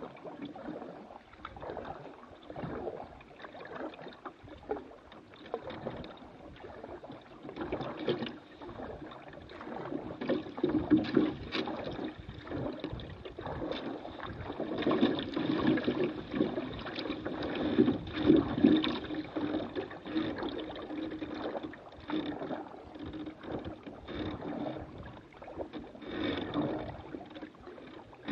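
Water gurgling and splashing along a canoe's hull as it moves through the water, with many irregular knocks. It grows louder through the middle stretch.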